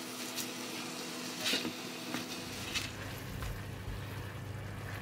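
Mustard greens and fishballs being turned over in a nonstick wok with a silicone spatula, a steady low sizzle under about four short scrapes and clatters of the spatula, the loudest about a second and a half in.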